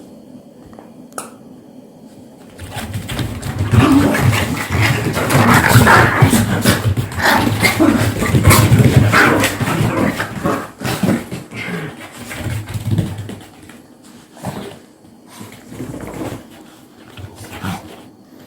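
Dogs fighting. After a quiet first couple of seconds, the fight breaks out loudly and runs until about eleven seconds in, then eases into shorter, scattered outbursts.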